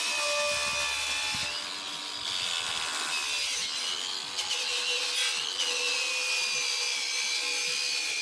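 Ryobi ONE+ 18-volt cordless angle grinder running against a workpiece, a harsh grinding noise under a high motor whine that dips and recovers in pitch as the tool bears on the work.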